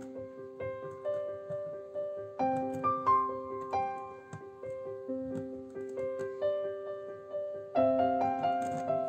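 Background piano music: a gentle melody of struck notes over held low notes, swelling louder at a few points.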